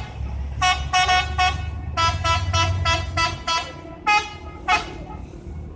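Bus telolet horn playing a jingle: a quick run of short, bright multi-note toots, about a dozen in five seconds, the fastest burst stepping up and down in pitch near the middle. A low engine rumble runs underneath the first half.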